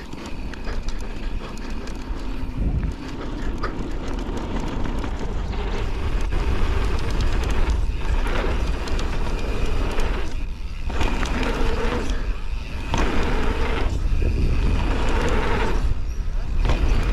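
Wind buffeting an action camera's microphone with tyre roar and rattling from a Canyon Torque mountain bike riding fast down a dirt freeride trail. Short knocks and clatters come as it goes over bumps, and the rush swells and dips every second or two.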